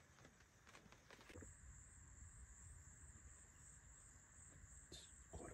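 Faint, steady high-pitched insect chirring, like crickets in a wetland, over a low wind rumble. It comes in about a second in, after a few faint clicks.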